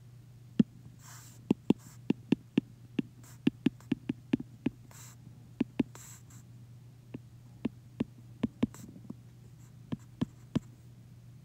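Apple Pencil tip tapping and clicking on an iPad's glass screen while numbers are handwritten: about two dozen sharp taps at an uneven pace, over a steady low hum.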